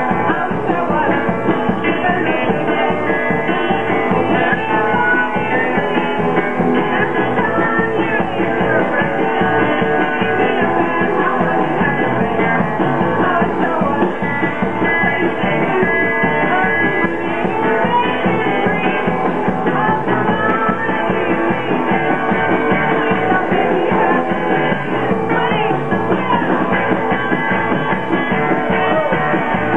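Live rock band playing: electric guitars, bass guitar and drum kit, with a steady beat.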